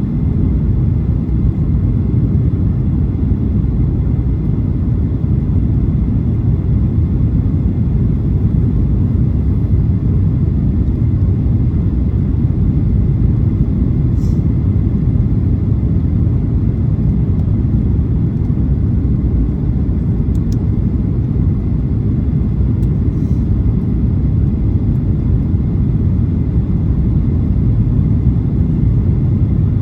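Boeing 737-800 airliner in flight on its way in to land, its CFM56 engines and airflow making a steady low rumble, with a few faint ticks.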